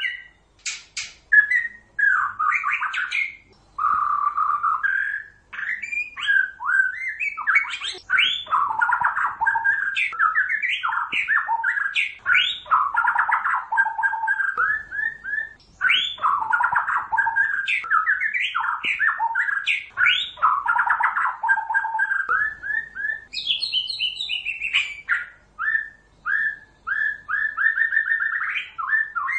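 White-rumped shama (murai batu, Pasaman strain) singing a long, varied song of quick whistled phrases and trills, broken by short pauses. About three-quarters of the way through it breaks into a higher-pitched phrase.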